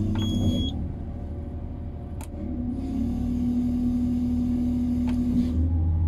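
Tadano GR-1000EX-4 rough-terrain crane running, with a steady low engine rumble in the cab. A high electronic beep stops just under a second in. From about two and a half seconds in, a steady hum with hiss rises and holds for about three seconds as the hydraulic outrigger jacks are worked to bring the crane level.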